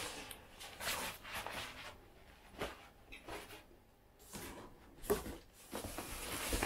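Rustling and scraping of a fabric protective cover and a cardboard box being handled, in irregular bursts, with one sharp knock about five seconds in.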